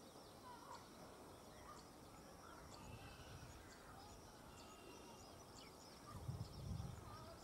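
Faint outdoor ambience with small birds chirping now and then, and a brief low rumble about six seconds in.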